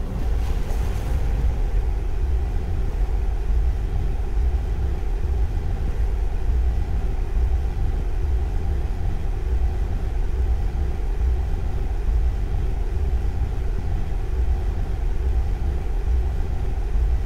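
Steady low rumble of tyre and engine noise heard inside a Hyundai Veracruz SUV cruising on a wet road.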